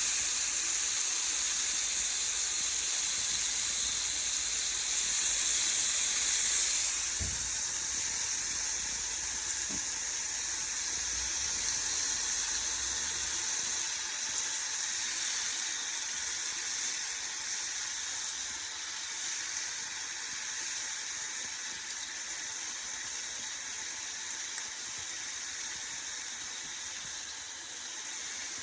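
Fish and onions sizzling steadily in a frying pan. The sizzle is a little louder for the first seven seconds or so, then eases, with a soft knock about seven seconds in.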